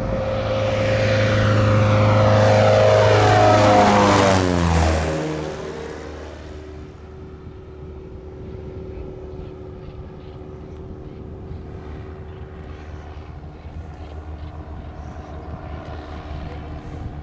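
Cessna 172 single-engine propeller plane passing low overhead. The engine-and-propeller drone is loudest about four seconds in, then drops sharply in pitch as the plane goes by. It settles into a quieter, steady drone as the plane flies off.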